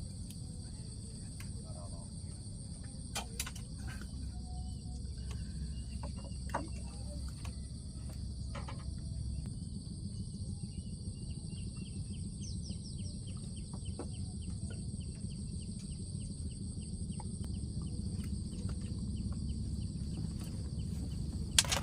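Steady high-pitched chorus of insects over a low outdoor rumble. From about halfway, a fast, even run of light ticks joins in, and there is a sharp click near the end.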